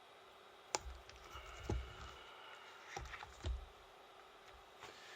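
A few light knocks and clicks, about four in all, of small objects being handled and set down.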